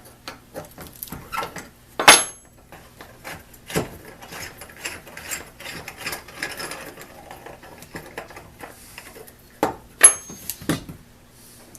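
Soldering-gun parts and small hand tools handled on a workbench while the electrical connections are cleaned: scattered clicks and knocks, a stretch of scraping and rubbing in the middle, and two sharp metal clinks that ring briefly, about two seconds in and near the end.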